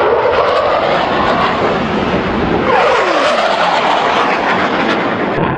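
Jet engine noise from a fighter jet flying low past, with a whine that drops steeply in pitch about three seconds in as the jet goes by.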